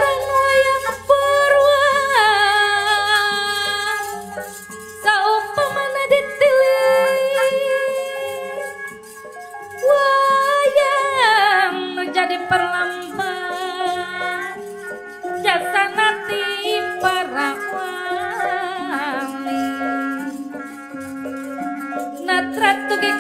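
Sundanese sinden (female singer) singing long, held phrases with vibrato and sliding pitch, accompanied by a gamelan ensemble.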